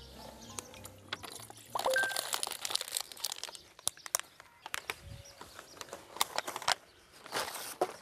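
Camp cooking gear being handled: scattered clicks and clinks with crinkling rustles, densest about two seconds in.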